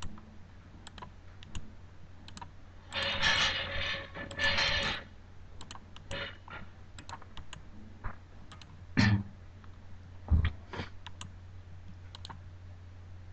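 Computer keyboard and mouse clicks, scattered and light. About three seconds in come two short stretches of dense clatter, and later two dull thumps. A steady low hum runs underneath.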